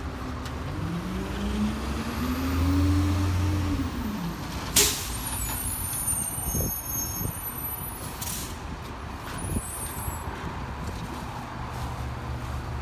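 Garbage truck's diesel engine revving up and then dropping back as the truck pulls ahead, over a steady low running drone, with a short sharp air-brake hiss about five seconds in and another a few seconds later.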